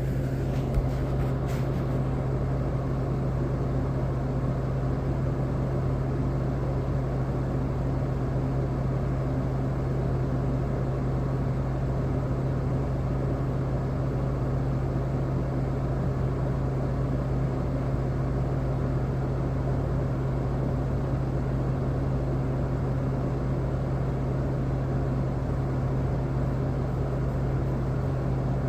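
Steady, unchanging low mechanical hum with a strong low tone over even noise, like a motor or fan running; a few faint clicks about a second in.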